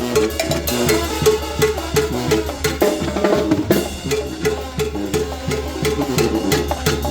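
Mexican banda music: drums with a short low note pattern repeating about twice a second in a steady beat.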